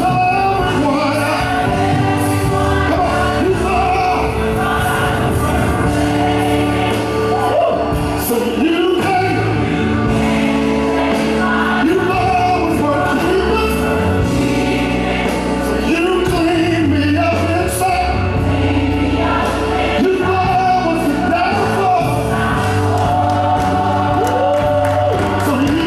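Gospel song with voices singing over a band and a steady bass line.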